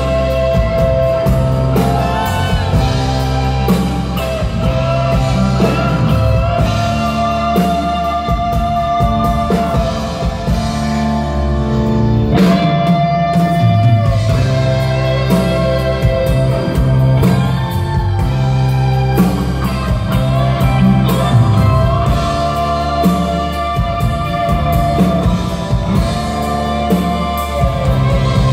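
Live rock band playing electric guitars over bass and drums, with long held notes.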